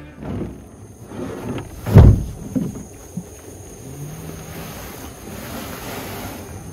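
Behlen Country poly stock tank being unloaded off a utility vehicle's bed, landing on the ground with one heavy thump about two seconds in, followed by a few lighter knocks.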